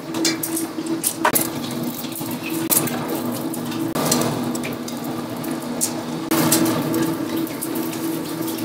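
Eggs sizzling and spattering in hot oil in a steel wok, with sharp crackles scattered throughout. The sizzle grows louder about four seconds in and again about six seconds in, as more eggs hit the oil. A steady low hum runs underneath.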